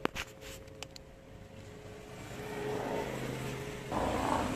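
A motor vehicle approaching along the street, its engine hum and tyre noise growing louder through the second half and loudest near the end. A few sharp clicks in the first second.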